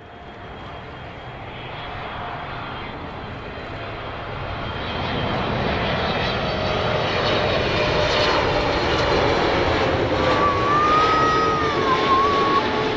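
Wide-body jet airliner on landing approach, its engine noise swelling louder as it comes nearer. A slowly falling whine runs through the noise as it passes.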